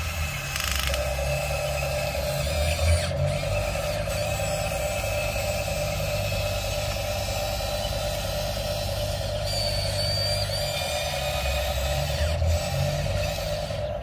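Radio-controlled toy excavator's small electric motors and plastic gearboxes whirring steadily as it slews round and works its arm, with a low hum beneath the whine.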